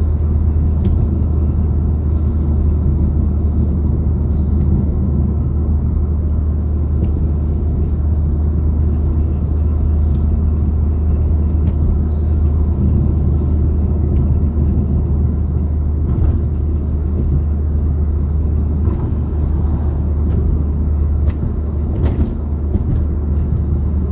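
Steady low rumble of a car driving, engine and tyre noise heard from inside the cabin, with a few brief clicks in the second half.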